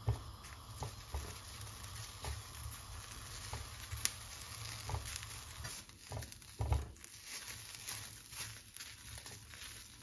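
Green peppers sizzling in a nearly dry pan as the last of their cooking water boils off, stirred with a silicone spatula that taps and scrapes against the pan now and then; the sharpest knocks come at the start and a little before seven seconds in.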